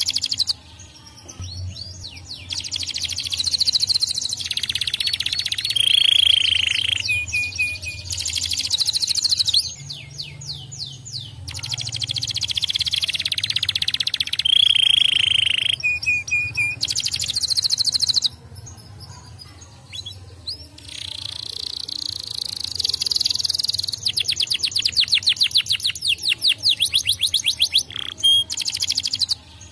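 Domestic canary singing long song phrases of rapid trills, broken by a couple of held whistled notes, with short pauses between phrases.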